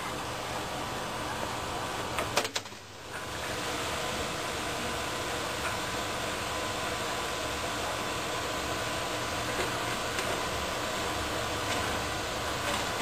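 Steady background hum and hiss, with a few sharp clicks and a brief drop in level about two and a half seconds in.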